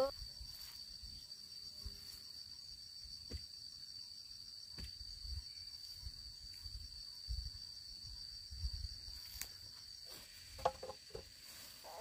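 Insects, likely crickets, trilling steadily as one continuous high-pitched tone. Scattered soft thuds and a few sharp clicks can be heard over it.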